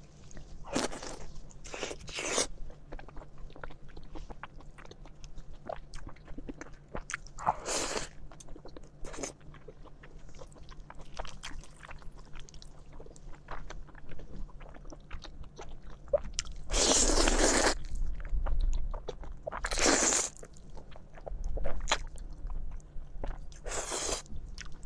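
Close-miked eating: a run of noodle slurps, each up to about a second long, with the loudest two about 17 and 20 seconds in. Between them come wet chewing and lip smacking.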